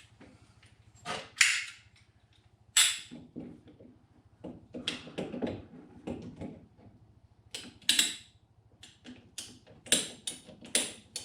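Scattered knocks, clicks and rustles of parts and tools being handled while working on plumbing, several of them sharp and loud.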